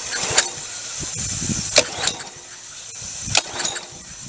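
Small gas engine of a pressure washer being pull-started by its recoil cord: a sharp pull about every second and a half, the engine not catching, over a steady high hiss.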